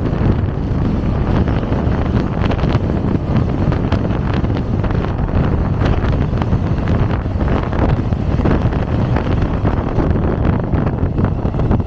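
Loaded freight train running past: a steady rumble of steel wheels on rail with rapid clacks over the rail joints, and wind buffeting the microphone.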